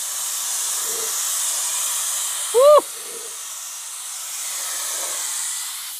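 Compressed air blasting out of a paint spray gun fed from a homemade fridge-compressor air tank: a steady hiss, easing a little for a second or so after the middle.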